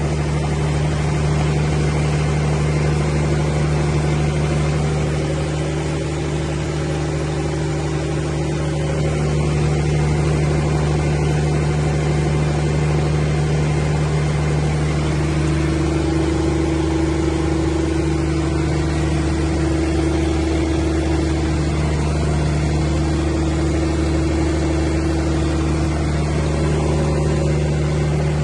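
180 kVA Cummins diesel generator set running at a steady, constant speed, with a slight dip in loudness a few seconds in.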